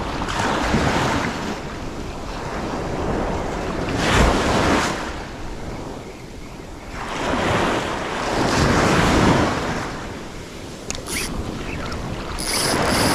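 Ocean surf washing up the beach in repeated swells, each wave rising to a rush and falling away, with wind buffeting the microphone.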